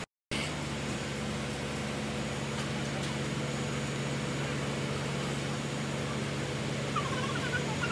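Truck crane's diesel engine running steadily with a low hum while lifting a load; the sound drops out briefly just after the start.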